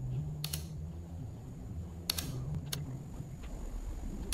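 Four sharp computer clicks spread over a few seconds, over a low steady hum.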